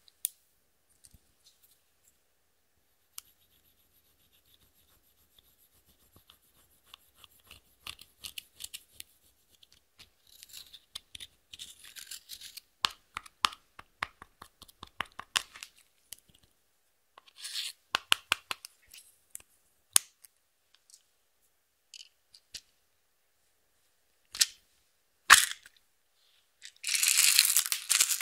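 Close-miked handling sounds in a slime ASMR session: scattered sharp clicks and taps, then stretches of scratchy scraping and rustling. A longer, dense scrape comes near the end.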